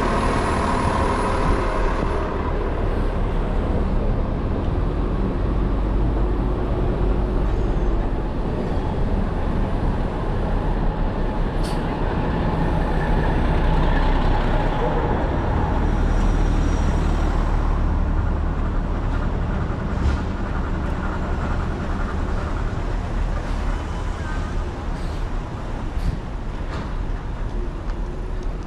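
City street traffic: a steady rumble of passing vehicles, heavy vehicles among them, with a few brief clicks.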